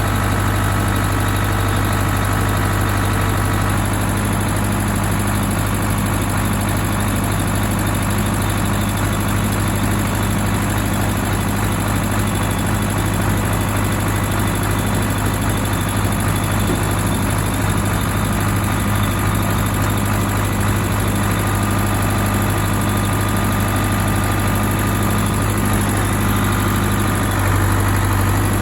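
Ford 6640 farm tractor's diesel engine running steadily, its note shifting slightly about four seconds in and again near the end.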